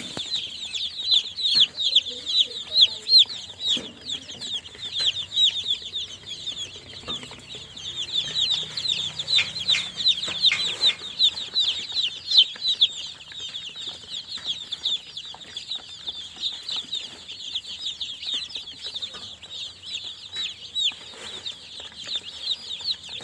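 A group of newly hatched chicks peeping continuously: many short, high-pitched peeps that slide downward in pitch, several a second and overlapping one another.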